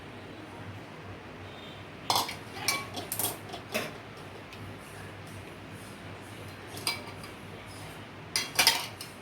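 Kitchen utensils clinking and knocking against each other as a boiled herbal decoction is strained from the pan into a cup: a cluster of clinks about two seconds in, a single one near seven seconds, and another cluster near the end.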